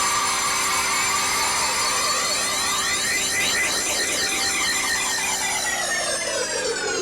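A loud, steady drone of many stacked tones. Near the end its pitch begins to sink.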